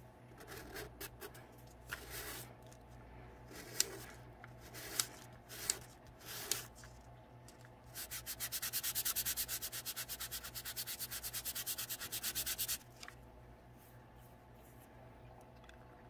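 A small painted door piece of a dollhouse microwave kit being sanded by hand on fine 220-grit sandpaper laid flat. First come a few separate single-pass scrapes. About halfway through, a quick, even run of back-and-forth strokes follows, louder than the rest, and stops suddenly after about five seconds.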